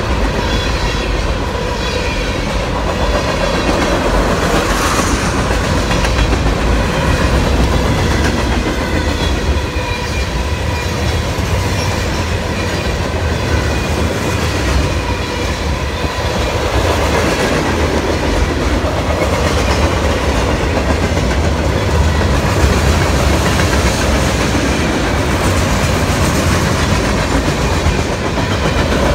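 Freight train cars (container gondolas, covered hoppers, tank cars and boxcars) rolling steadily past, their steel wheels running on the rails with a continuous rumble.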